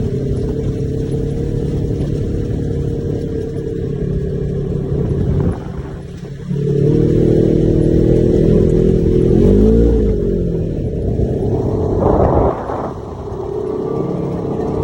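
Side-by-side UTV engine running under way, easing off twice and picking back up.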